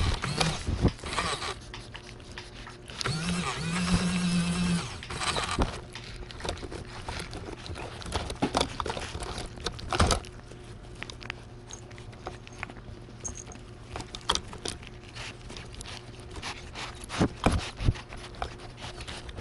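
Cats licking and lapping at a squeeze-tube cat treat held right against the microphone, with many small clicks, knocks and scrapes as their heads and tongues bump the mount. A low steady buzz sounds for about a second and a half a few seconds in.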